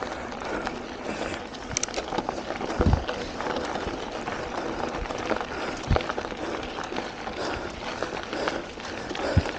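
Mountain bike rolling fast down a gravel road: tyres crunching over loose gravel with a constant patter of small clicks and rattles from the bike, and a few low thumps about three seconds apart as it goes over bumps.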